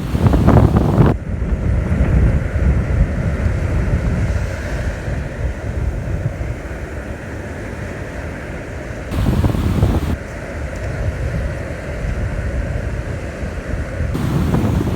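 Surf washing on the beach, a steady rushing hiss, with wind buffeting the microphone in gusts: once at the start, again about nine seconds in, and near the end.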